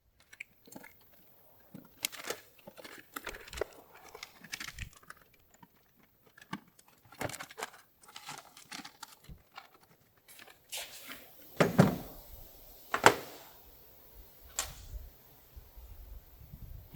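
Irregular rustling, scraping and light clicking of wiring being pulled and handled under a car's dashboard, with two sharper knocks in the last third.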